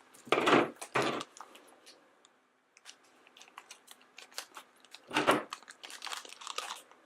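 A small plastic blind bag being crinkled and torn open by hand: short loud rustles in the first second and again about five seconds in, with light crackling between.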